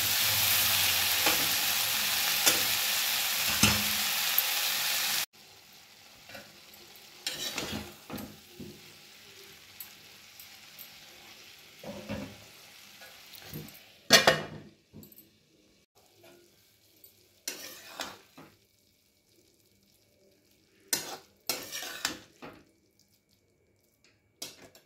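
Okra, tomato and onion sizzling as they fry in a wok while a spatula stirs them. About five seconds in the sizzle cuts off abruptly. After that there are only scattered scrapes and clacks of the spatula against the pan, the loudest a little past halfway.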